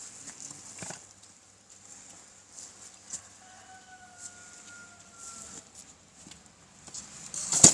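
A rooster crows once in the distance, one long, faint call that falls slightly over about two seconds, among scattered light clicks. A sharp click right at the end is the loudest sound.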